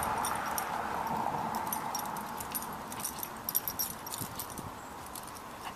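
The metal links of a dog's prong collar and its lead clips jingle in small irregular clinks as the Doberman walks at heel. Under them, a steady rush of passing traffic fades away over the first few seconds.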